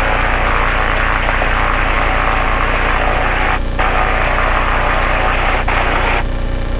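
Two-stroke engine of a Buccaneer II amphibious ultralight running at high power during the takeoff roll. It comes through the headset mic and radio as a loud, steady drone with hiss on top, and the hiss drops out briefly twice: about three and a half seconds in and near the end.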